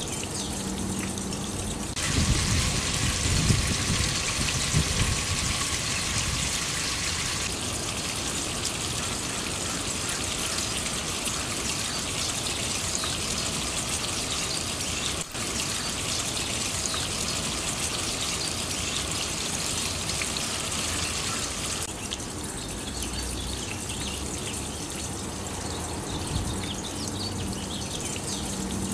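Water running down a copper cup rain chain, splashing and trickling from cup to cup in a steady spatter that shifts in strength a few times.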